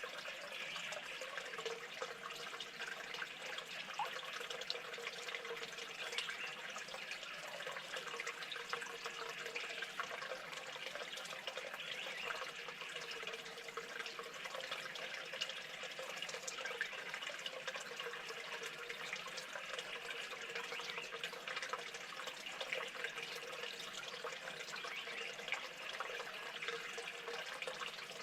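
Steady trickling water, with faint scattered drips and clicks.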